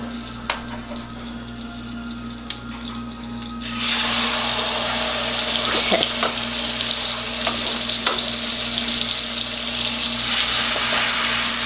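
Steak frying in garlic butter in a hot pan: a faint sizzle with a few light clicks, then about four seconds in the sizzle jumps suddenly to a loud, steady hiss as the steak goes into the butter.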